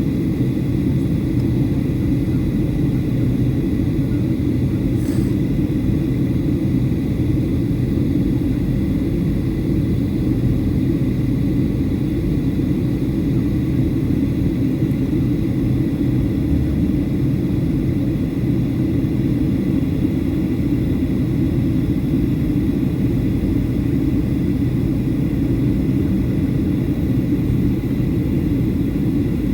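Steady cabin noise inside a Boeing 737-800 in flight: a deep, even rumble of airflow and its CFM56-7B turbofan engines, with faint steady high whines above it.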